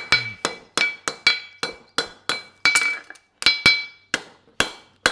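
A farrier's hand hammer strikes a red-hot steel horseshoe on an anvil in steady blows, about two to three a second, each with a short metallic ring. The heel of one branch of the shoe is being forged to center.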